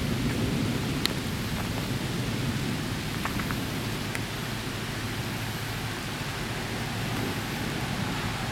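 Thunderstorm noise: a steady hiss of rain over a low, continuous rumble of thunder, with a few faint clicks.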